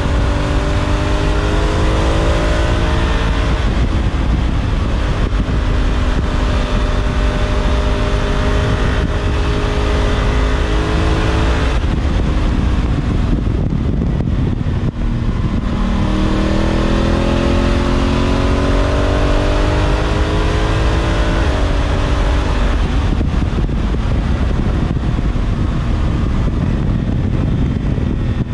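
2019 Honda Africa Twin DCT's 998 cc parallel-twin engine and exhaust on the move. It rises in pitch as it accelerates near the start, eases off about halfway through, then pulls and rises again, over a steady rush of wind noise.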